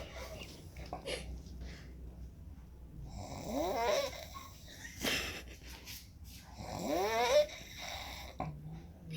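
Odd-sounding snoring: three breaths about three seconds apart, each carrying a squeaky whistle that rises in pitch. A sharp click about five seconds in.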